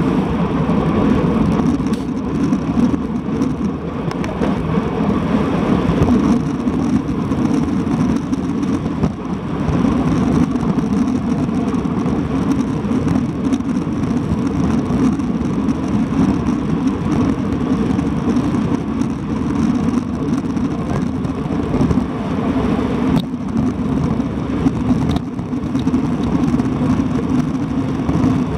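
Wind rushing over an action camera's microphone on a road bike descending at speed, mixed with tyre noise on the asphalt: a loud, steady rush, with two sharp clicks late on.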